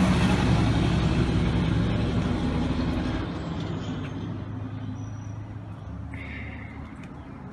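A large diesel vehicle engine running with a steady low hum. It is loudest at the start and fades over the next few seconds.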